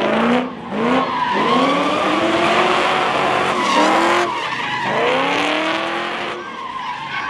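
Car engine revving hard again and again while the tyres squeal and skid through a drift, its pitch sweeping up several times in a row.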